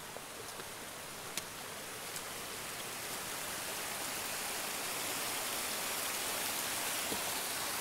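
Mountain stream rushing over rocks: a steady hiss of running water that grows louder over the first few seconds, with a couple of light clicks about a second and a half and two seconds in.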